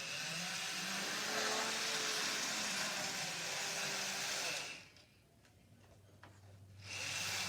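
N scale model train's motor and wheels whirring as it runs along the track, cutting off about four and a half seconds in, then whirring again briefly near the end.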